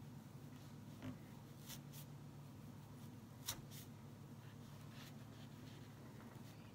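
Faint rustling and scratching of polyester fiberfill being packed into a small felt chicken with a wooden stick, with a few soft clicks, the clearest about three and a half seconds in. A low steady hum runs underneath.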